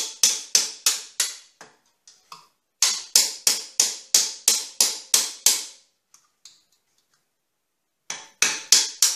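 Hammer blows on a steel punch driving the pinion bearing races out of a Dana 30 axle housing: sharp metal-on-metal strikes about four a second with a ringing tone. They come in three runs, with a pause of about a second after the first and about two seconds after the second; the last run starts near the end.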